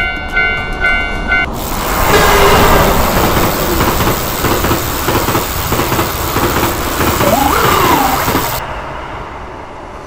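A train passing: a loud rushing of wheels on rails with rapid clatter. It comes in about a second and a half in, cutting across the background music, and fades after about eight seconds. Near the end a short tone rises and falls in pitch.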